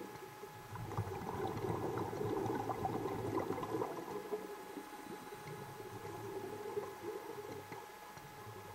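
Underwater bubbling and gurgling of exhaled air from a scuba regulator, loudest from about one to four seconds in, over a faint steady hum.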